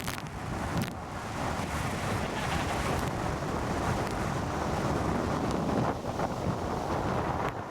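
Wind buffeting the microphone in a steady, heavy rush, with boat and water noise beneath it.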